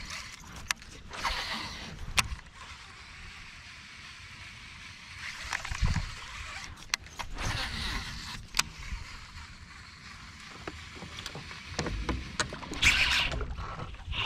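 A baitcasting rod and reel worked by hand: the reel being wound in, with several sharp clicks and short swishes of the rod and line, and a louder rush of a cast a little before the end.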